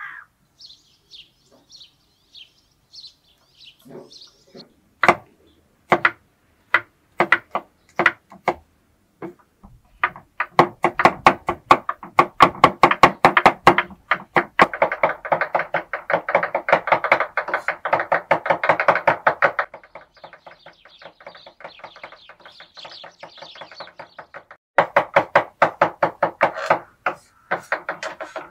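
Knife chopping on a wooden cutting board. A few single chops come about a second apart, then a fast, even run of many chops a second for about ten seconds, which goes lighter and then turns rapid again near the end.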